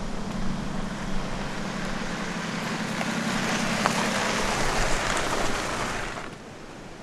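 BMW X3 SUV driving past on a gravel track: a steady engine hum under the crunch of tyres on gravel, which grows louder with a few stones popping, then drops away about six seconds in as the car passes.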